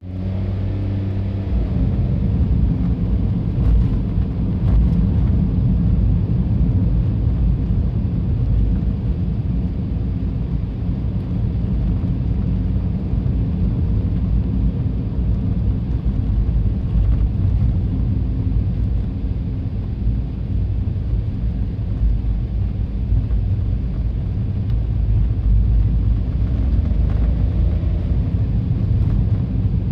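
A car being driven: steady low rumble of engine and road noise heard from inside the cabin.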